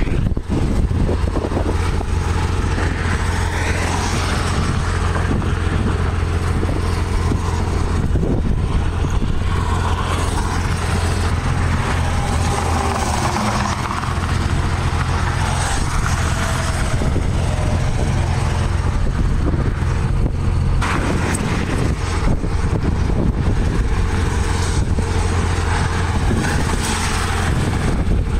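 A motor vehicle's engine running steadily, a constant low drone under an even rushing noise.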